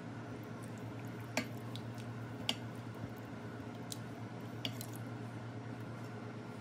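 Silicone spatula stirring a creamy coconut-milk vegetable stew in a stainless steel pot: wet squishing of the thick liquid, with about four light clicks of the spatula against the pot. A steady low hum runs underneath.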